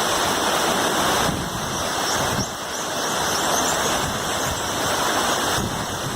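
Waterfall rushing: a steady, loud noise of falling water, close to the falls.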